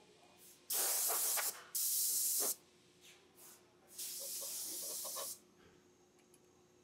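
Hissing bursts from a pressurised jet on the vinyl record production line: two loud bursts close together, then a slightly quieter, longer one about four seconds in.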